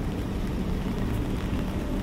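Steady low rumble of street traffic with a faint engine hum, under a light hiss of rain on a wet walkway.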